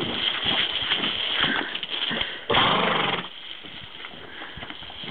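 Water spraying from a garden hose nozzle onto a horse's head and muzzle, a steady hiss with splashing and small clicks. About two and a half seconds in comes a loud burst of noise lasting well under a second.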